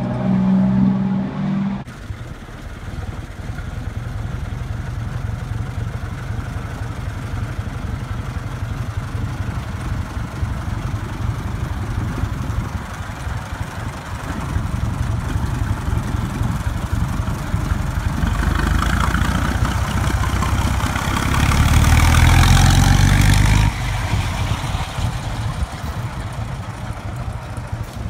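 1923 American LaFrance ladder truck's engine running as the truck drives by, a steady low rumble. It grows louder and fuller from about 18 s in as the truck passes close, then drops suddenly near 24 s and carries on more quietly as it moves away. For the first two seconds a modern fire engine is heard pulling away.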